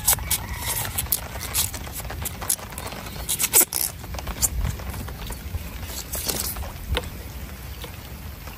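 Grip tape being wrapped around a fishing rod's handle: irregular crackles, scrapes and clicks as the tape peels and is pressed on, with a louder cluster about three and a half seconds in.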